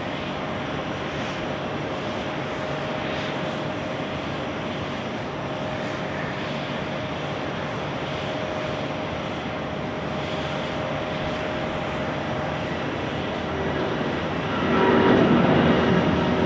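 Airbus A330-941's two Rolls-Royce Trent 7000 turbofans at takeoff thrust through the takeoff roll and liftoff: a steady rushing jet noise with a faint steady tone in it. About fifteen seconds in it grows clearly louder and several steady tones come in as the climbing airliner comes closer.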